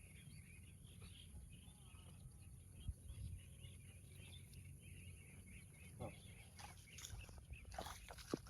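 Faint, steady chatter of small birds chirping, over a low rumble, with a few knocks and rustles near the end.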